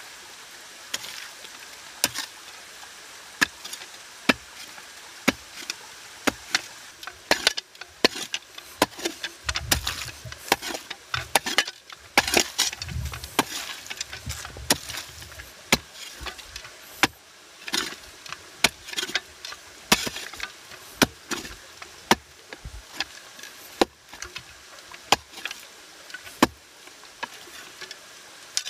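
A folding shovel chopping and scraping into wet clay soil, a sharp strike about once a second. Through the middle stretch the scraping comes faster, with dull low thuds.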